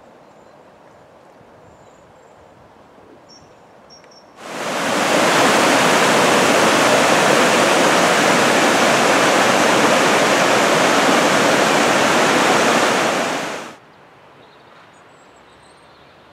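River Tweed rushing over a shallow rocky rapid: loud, even white-water noise that cuts in about four seconds in and stops suddenly about nine seconds later. Before and after it only a quiet outdoor background.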